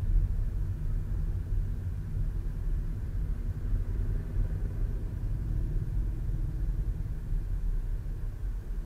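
Low, steady rumble of a car driving slowly in traffic, picked up inside the cabin by a dashcam microphone.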